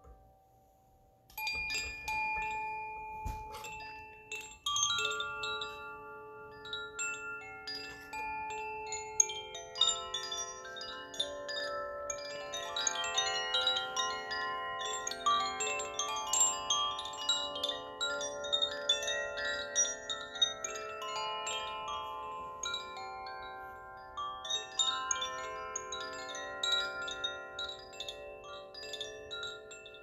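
Hanging cylindrical wooden chimes set swinging by hand, ringing a cluster of overlapping, sustained tuned notes with bright jingling overtones. The ringing starts about a second and a half in and carries on, notes layering over one another.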